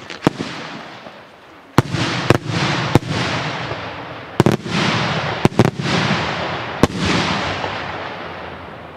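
Multi-break Italian salute shell going off in the sky in a rapid string of about eight sharp, loud bangs, some in close pairs. Each bang is followed by a long rolling echo that dies away slowly.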